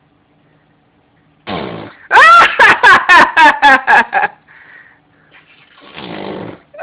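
Baby making a weird, goofy vocal noise: a short buzzy sound, then a run of about eight loud pitched bursts at roughly four a second, and another lower buzzy sound near the end.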